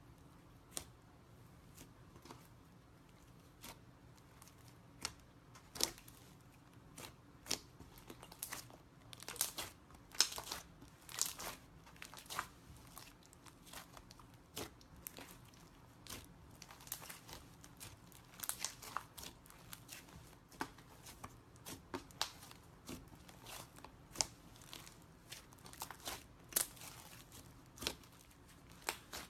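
Slime clay being worked by hand, making crackling, tearing little pops. They come sparsely at first and thicker and faster from about nine seconds in.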